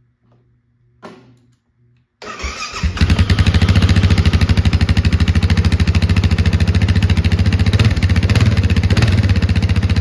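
2013 Husqvarna TR650's single-cylinder four-stroke engine cranked by its electric starter about two seconds in, catching within a second and then running steadily with an even, rapid thump through its stainless twin-tip exhaust, which sounds quite four-wheeler-ish.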